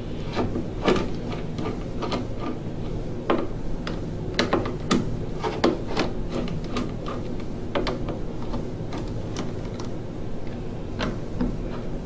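A screwdriver loosening the screws of the worm-gear hose clamps on a gas furnace's rubber vent elbow: irregular small clicks and light scraping of metal, over a steady low hum.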